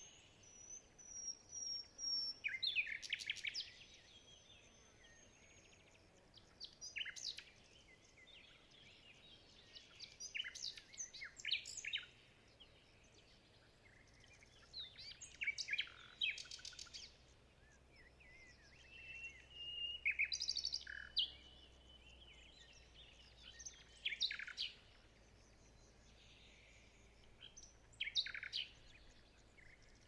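Songbirds singing: short bursts of high, chirping song every few seconds, with a couple of long, thin whistles.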